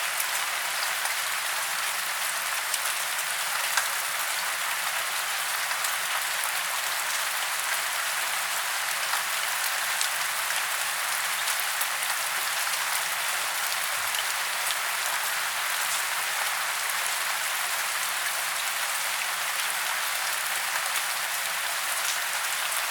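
Steady rain falling on tree branches and leaves in woodland: an even hiss with many small drop ticks scattered through it.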